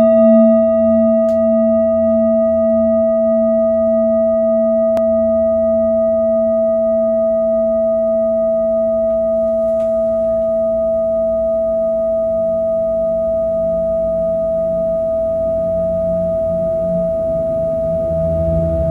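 Metal singing bowl ringing on after a strike, holding a clear steady tone over a deeper tone that pulses with a slow wobble, fading only slightly. A faint click comes about five seconds in, and a low rumble grows faintly near the end.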